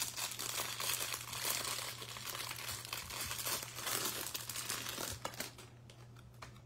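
Clear plastic wrap crinkling and tearing as it is peeled off a stack of baseball cards, dying down to a few light crackles near the end.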